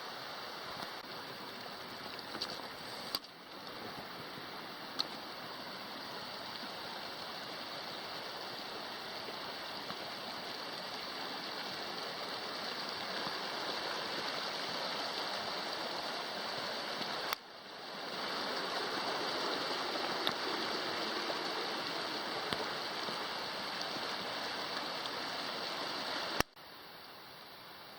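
Steady rush of a mountain stream's running water. It breaks off abruptly twice and drops to a quieter level near the end.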